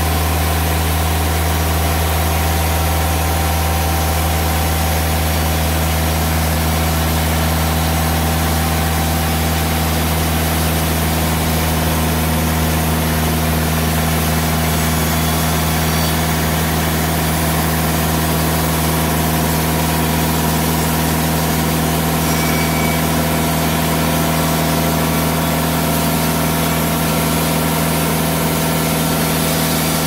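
Timberking 2000 band sawmill running steadily under load, a deep even engine hum, as its band blade saws lengthwise through a large spalted ash cant.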